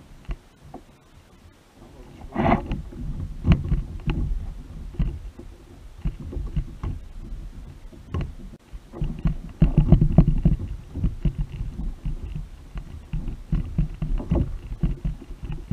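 Irregular knocks and thumps on a kayak, many short low bumps in uneven clusters, loudest about two and a half seconds in and again around ten seconds in.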